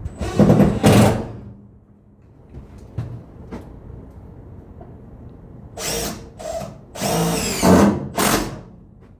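Power drill running in short bursts, its motor pitch rising and falling: twice in the first second, then several more near the end.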